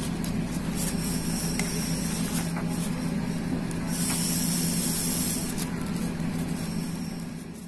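Fresh taro leaves rustling and crinkling as they are folded and pressed by hand into a stuffed bundle, over a steady low hum.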